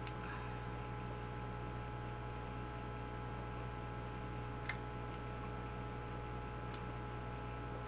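Hot-staple plastic welder humming steadily while its heated staple melts into the plastic base, with a couple of faint ticks in the second half.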